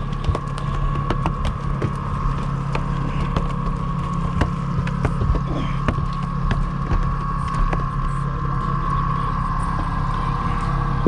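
Boat's outboard motor running steadily: a constant low hum with a higher steady whine over it, with scattered light clicks and knocks.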